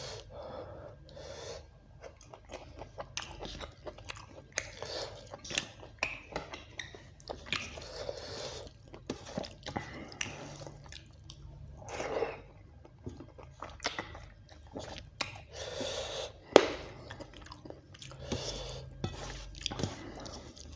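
A person chewing mouthfuls of beef curry and rice close to the microphone: a continuous run of wet, sharp mouth clicks and short crunchy bites, one click much louder about sixteen seconds in.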